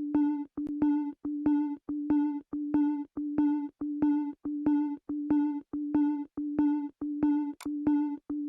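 Music intro: a single low synthesizer note pulsing on and off at an even pace, just under twice a second, each pulse starting with a sharp click.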